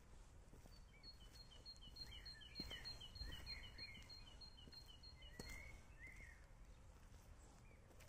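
Songbirds singing faintly: one repeats a quick high note at two alternating pitches, about four a second, stopping about five seconds in, while another gives a few lower slurred chirps.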